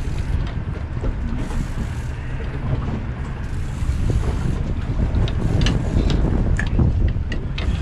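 Wind buffeting the microphone on an open boat at sea: a dense, steady low rumble, with a scattering of light clicks in the second half.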